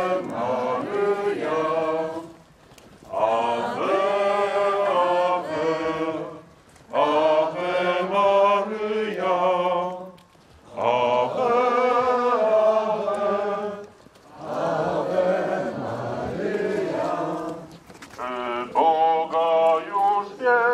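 A group of voices singing a slow devotional chant in unison, in phrases of about three seconds with short pauses between them.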